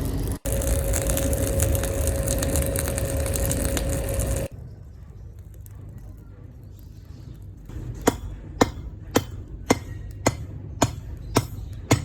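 A loud steady mechanical whir with a faint hum cuts off abruptly a few seconds in. Near the end, a hammer strikes metal on an anvil in an even rhythm, eight ringing blows at nearly two a second, typical of forging a blade.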